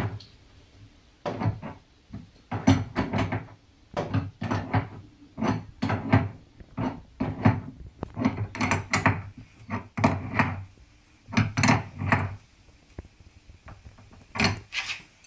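Adjustable wrench tightening the nut of a tank connector through the side of a plastic wheelie bin: an irregular run of clicks and knocks, about two or three a second, as the wrench is turned and reset on the nut, with a short pause before a few more near the end.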